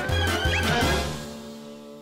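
Cartoon background music: a rhythmic bass-led figure runs for about a second, then gives way to a held chord that fades out.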